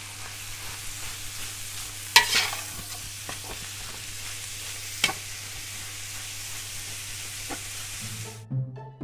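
Cubed beef brisket sizzling as it sears in a large stainless steel pot with browned onions and spices, stirred with a slotted metal spatula that knocks against the pot three times. Near the end the sizzle cuts off and background music with low string notes comes in.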